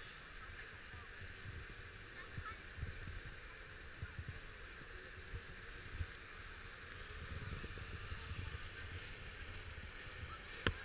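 Steady rush of river water spilling over a low weir, with wind gusting on the microphone.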